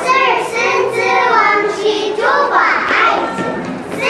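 A small group of young children singing together in unison, holding each note.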